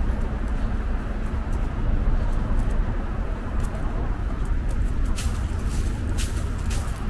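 Steady low rumble of distant road traffic, with footsteps on a paved path at walking pace, about two a second, becoming clearer near the end.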